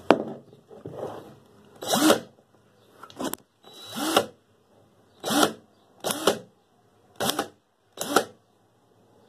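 DeWalt DCD771C2 20V cordless drill/driver motor whirring in a series of short bursts, roughly one a second, as the variable-speed trigger is squeezed and released. Each burst rises and falls in pitch. There is a sharp click at the very start.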